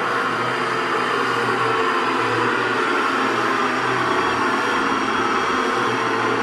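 A steady, loud droning noise with a low hum underneath, unbroken throughout.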